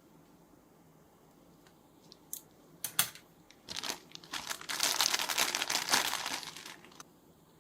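Packaging being handled and unwrapped: a few sharp clicks a couple of seconds in, then several seconds of dense crinkling and rustling that stops suddenly near the end.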